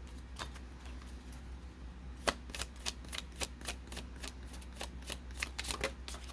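Tarot cards being shuffled by hand: an irregular run of short card clicks and slaps, a few a second, over a faint steady low hum.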